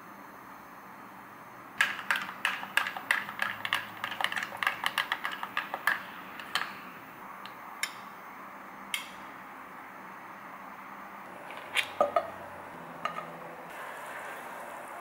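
Metal spoon clinking against a small glass bowl while stirring a sauce: a quick run of clinks at about five a second, then a few scattered taps. Near the end a faint hiss of butter melting in a frying pan.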